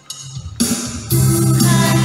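Music from a song's backing track: after a brief dip, it comes back with a sudden hit about half a second in. The full accompaniment with drums and a steady beat starts from about a second in.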